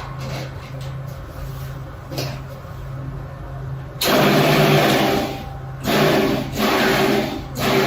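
Food processor pulsing a chunky chickpea falafel mixture: a lower steady stretch, then three loud pulses from about four seconds in, the first the longest.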